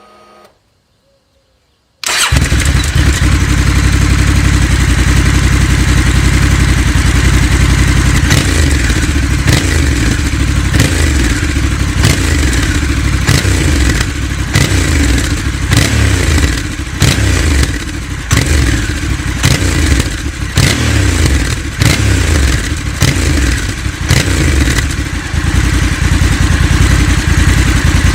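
Honda Africa Twin parallel-twin engine through an aftermarket exhaust, cutting in loud about two seconds in and running, then blipped repeatedly from about eight seconds in.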